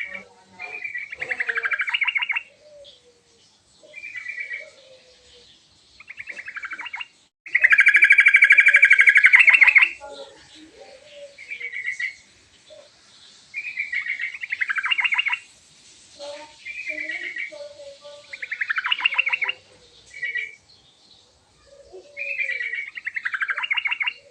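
Yellow-vented bulbul singing: repeated phrases of rapid chattering notes, each a second or two long, with softer, lower notes between them. A longer, louder trill comes about eight seconds in.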